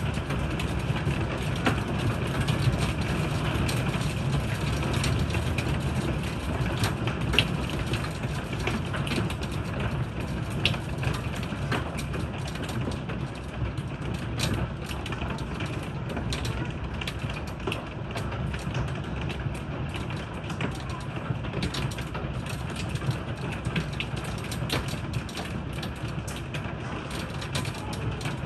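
Heavy rain with hail: a steady downpour hiss packed with many sharp, irregular clicks of hailstones striking a wooden deck.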